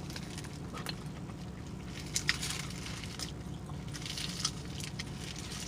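Close-up chewing and wet lip-smacking of a mouthful of crepe, with a few sharper smacks about two seconds in and again a little after four seconds, over a steady low hum.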